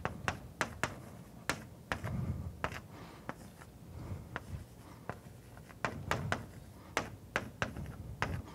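Chalk on a blackboard as a formula is written: a string of sharp, irregular taps with light scratching between them.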